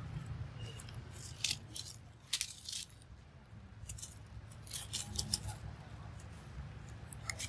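Dry fallen leaves crackling and rustling in several short bursts, about a second and a half in, around two and a half seconds in and again around five seconds in, as something moves over the leaf litter.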